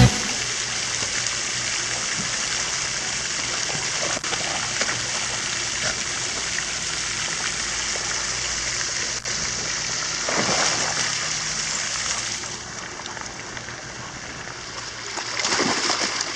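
Water splashing and lapping around swimming and wading dogs. There is a steady wash of water noise, a brief louder splash about ten seconds in, and heavier splashing near the end as dogs scramble in the shallows.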